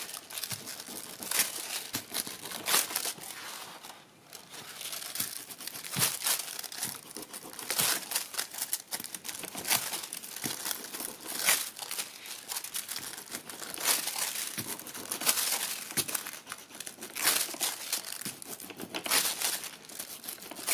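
A sheet of silver mirror transfer foil crinkling and rustling as fingers rub and press it onto dried gilding glue on paper, in irregular crackly bursts with a short lull about four seconds in.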